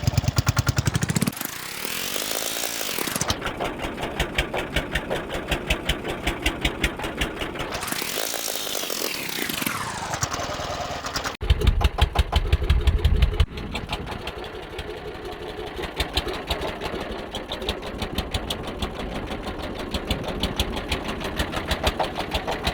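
Small boat engine running steadily with rapid, even firing pulses. It is louder briefly near the start and again for a couple of seconds about halfway through.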